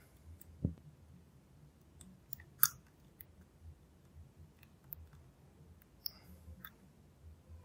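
Lock pick and tension wrench working the pin stack of a Brady lockout padlock with an Abus keyway: scattered small, sharp clicks, the sharpest a little after two and a half seconds in. A dull low knock comes about half a second in.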